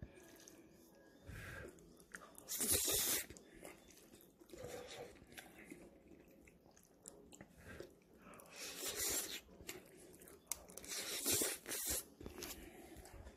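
A person chewing a mashed-up meal of fish fingers, potatoes and spaghetti, with mouth sounds close to the microphone. Three short, louder rushes of noise stand out, one about two and a half seconds in and two more near the end.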